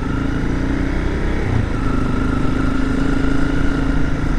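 Honda CRF250L's single-cylinder four-stroke engine running under way at a steady note, with a short dip in pitch about a second and a half in.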